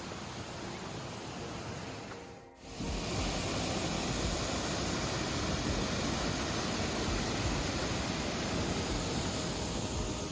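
Steady rush of falling water from a waterfall, cutting out briefly about two and a half seconds in and coming back louder.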